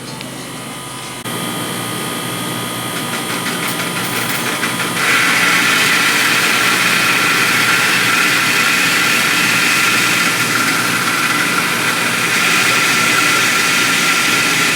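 Loud, steady engine-like mechanical running noise. It steps up in level about a second in and jumps louder again about five seconds in.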